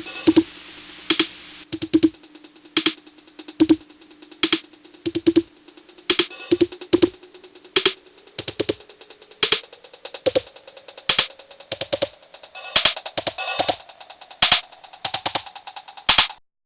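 Electronic drum-machine beat with a held keyboard tone that slowly rises in pitch through the second half, then the music cuts off suddenly near the end.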